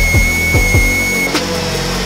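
High whine of an air-driven, 3D-printed two-stage centrifugal compressor spinning with its outlet inflating a balloon. About a second and a half in, the whine cuts off with a click, and a lower tone slowly falls in pitch as the rotor spins down. Background music with a steady beat plays throughout.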